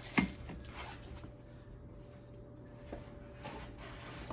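A turbo inlet pipe being handled and pushed into its slot on the turbocharger: one sharp knock just after the start, then a few faint clicks and taps.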